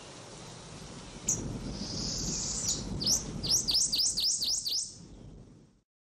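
American goldfinch calling: a short high note, a brief buzzy note, then a quick run of about eight sharp, dipping chirps at roughly four a second, before the sound cuts off near the end.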